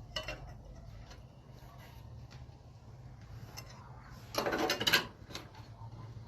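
Scattered light clicks and knocks, with a louder rustling clatter lasting under a second about four and a half seconds in, over a steady low hum.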